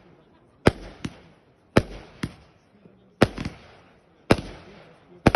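Fireworks going off in quick succession: about eight sharp bangs, each followed by a fading echo, spaced roughly half a second to a second apart.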